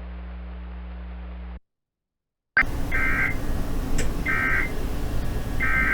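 A steady electrical hum that cuts off, a second of dead silence, then a new recording with a background hiss and three short, buzzy digital data bursts about a second and a half apart: the SAME header of an Emergency Alert System broadcast.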